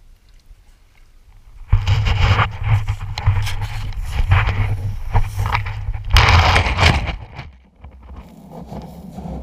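Pebbles crunching and a low rumble of handling noise while the camera is carried across a stony beach, starting about two seconds in. It stops after a louder burst near the end, as the camera is set down on the stones.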